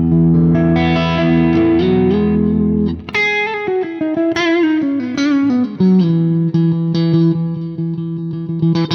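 Ibanez Universe UV7P seven-string electric guitar played through an amp with a boost engaged, which adds a little gain. A low chord rings for about three seconds, then a single-note lead line with vibrato ends in a long held note.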